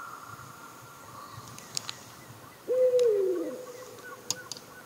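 A single hooting animal call at night: it starts abruptly on a held, fairly low note with a second, falling tone beneath it, and fades over about a second and a half. A few faint sharp clicks fall around it.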